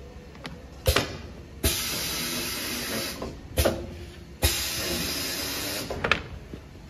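Cardboard grooving machine cutting grooves in greyboard: a sharp clack, then the cutter head runs across the board with a steady hissing scrape for about a second and a half. This happens twice.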